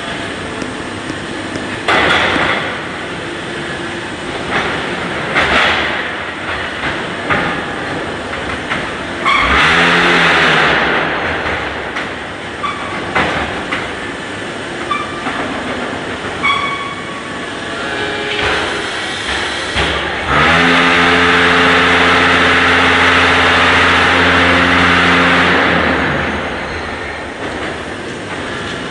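Zenith 940 concrete paving-block machine cycling: clanks and knocks over steady machine noise, a short loud burst of vibration about a third of the way in, then the mould vibrators spin up with a rising hum and run loud and steady for about five seconds before winding down as they compact the concrete.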